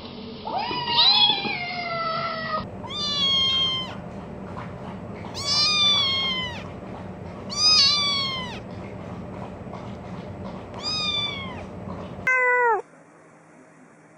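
Kittens meowing, a series of about six high, thin meows, each rising and then falling in pitch, spaced a second or two apart. The last one, near the end, is short, and then the meowing stops.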